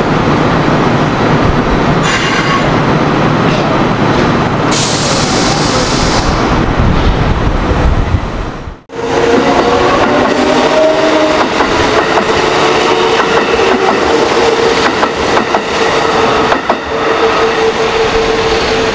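Kintetsu 3200 series electric train on the move: a loud rumbling rail noise with a brief high hiss, broken off abruptly about nine seconds in. After the break the early Mitsubishi GTO-VVVF inverter drive sounds as several gliding tones, which settle into one steady humming tone.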